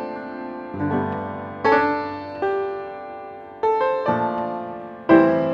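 Background music: piano chords struck one after another, each left to ring and fade before the next.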